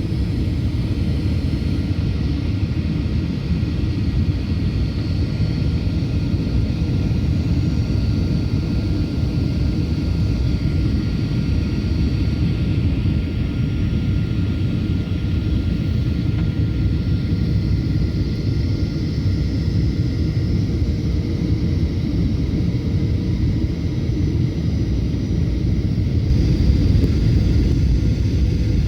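Steady low rumble inside the cabin of a Boeing 737-800 on its approach for landing: engine and airflow noise with a few faint steady whine tones above it. It grows slightly louder and brighter near the end.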